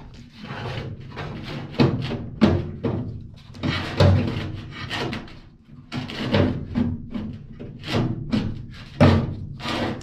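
Air handler's sheet-metal blower housing being worked back into its cabinet: a busy run of knocks, clunks and scrapes of metal on metal, the sharpest about two, four and nine seconds in.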